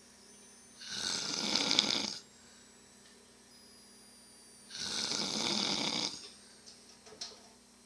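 A sleeping person snoring really loud: two long snores about four seconds apart, each over a second long, with quiet between.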